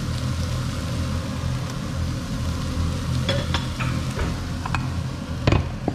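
Minced pork with shiitake and onion sizzling in a non-stick pan over a steady low hum, with wooden chopsticks clicking against the pan a few times and one louder knock near the end.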